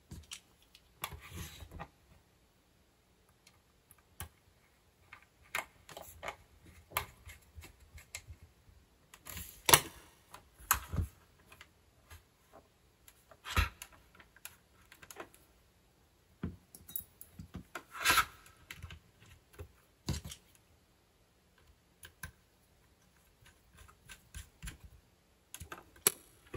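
Irregular light clicks and taps of small screws and a screwdriver working on the plastic case of a portable cassette tape recorder as it is screwed back together, with a few louder knocks among them.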